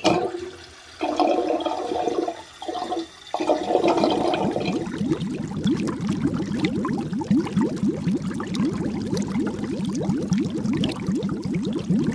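Water at a rolling boil, bubbling in a pot. It cuts in abruptly with a rushing sound that drops away briefly a few times in the first three seconds or so, then settles into dense, steady bubbling.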